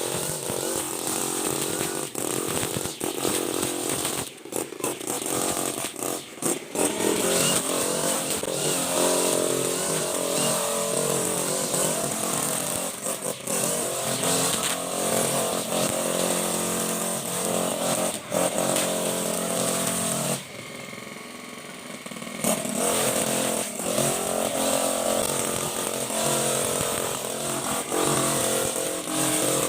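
Honda GX35 four-stroke brush cutter engine running at high throttle, with a few brief dips in speed a few seconds in. About two-thirds through it drops to a quieter, lower speed for about two seconds, then revs back up.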